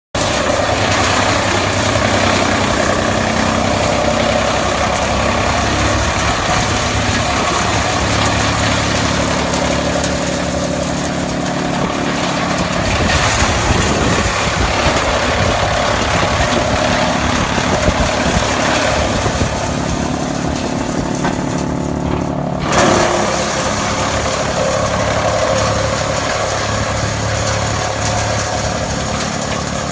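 Tractor engine running steadily while driving a wood chipper, with a continuous mechanical whir. The sound shifts abruptly with a brief louder jolt about three-quarters of the way through.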